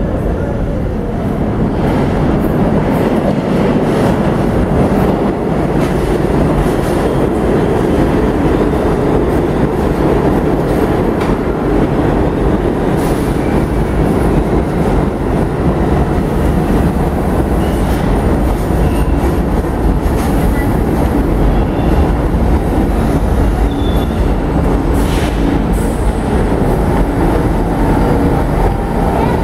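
New York City subway trains running on the rails through an underground station: a steady, loud rumble of wheels and cars, with a few faint clicks and high wheel squeals. A train runs past on the tracks partway through, and another pulls in near the end.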